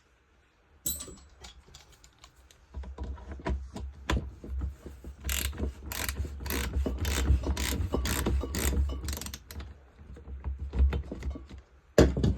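Ratchet wrench clicking in quick runs as a spark plug is unscrewed from a leaf blower engine, after a single click about a second in; the clicking stops near the end.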